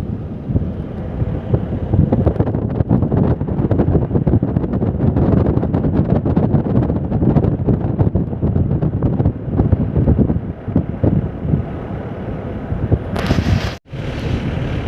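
Wind buffeting the microphone inside a moving car, over the rumble of the car on the road, rising and falling in gusts. Near the end a brief hiss and a sudden break.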